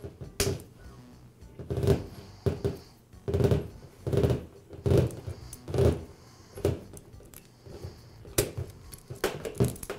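Small bearing puller being screwed down by hand to draw the worn ball bearing off a laminate trimmer's armature shaft: a string of short metallic creaks and clicks, about one a second.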